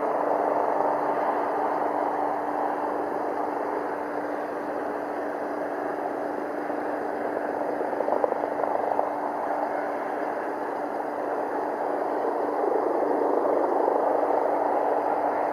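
Piper PA-28 Cherokee's single piston engine and propeller running, heard from a distance as a steady drone that grows louder near the end.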